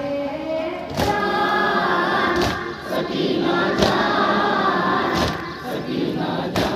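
A noha, a Shia mourning lament, sung by a boy into a microphone with a group of men singing along as a chorus. Sharp thuds land on the beat about every second and a half, typical of the mourners' chest-beating (matam) that keeps time to a noha.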